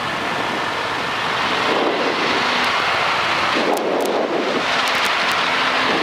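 Small experimental airplane's engine at full takeoff power with rushing air noise, building in level.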